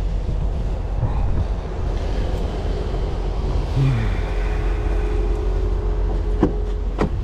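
A vehicle engine idling with a steady low rumble, with two short knocks near the end.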